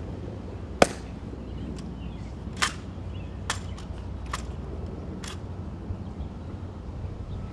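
Sharp slaps and clicks of a Tomb Guard's rifle drill as he moves his rifle from one shoulder to the other, five crisp impacts about a second apart, the first the loudest, over a steady low outdoor rumble.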